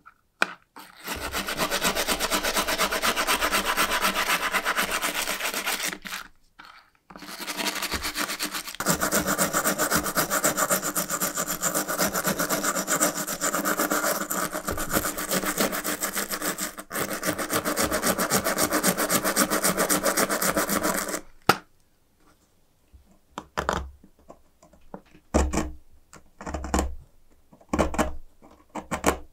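A brush scrubbed rapidly back and forth against the rusty metal body of an antique Carl Zeiss monocular coated in paint stripper, in two long spells with a short break about six seconds in. Near the end, a few quieter, separate scrapes of a pointed tool picking at the softened black residue.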